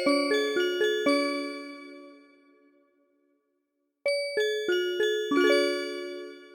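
MIDI-recreated Japanese train onboard chime in bell-like tones. The last notes of one chime melody ring out about a second in and fade away, and after a short silence the next chime melody starts about four seconds in.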